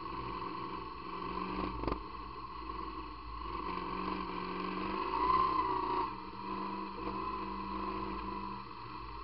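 Motorcycle-and-sidecar outfit's engine running under way, with a sharp knock just under two seconds in and a brief louder swell a little past halfway.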